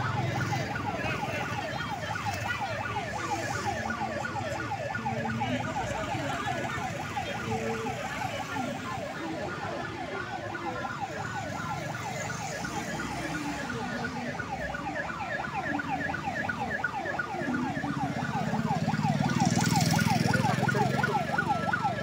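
Emergency-vehicle siren in a fast yelp, its pitch sweeping up and down several times a second. Vehicle engine noise swells under it near the end.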